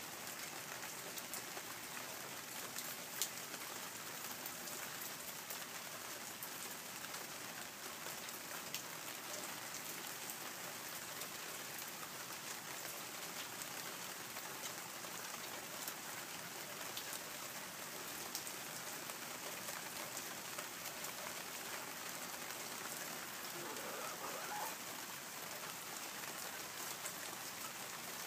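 Steady hiss of light rain, with a few faint ticks scattered through it.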